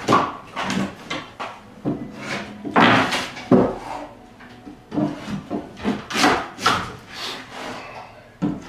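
Wood scraping and knocking: a long-handled tool dragged and poked among exposed floor joists while loose subfloor boards rub and shift. It comes in irregular strokes about twice a second, with a short pause about four seconds in.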